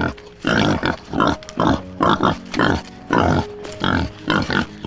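An animal making a rapid series of short, noisy calls, about two or three a second, over soft background music.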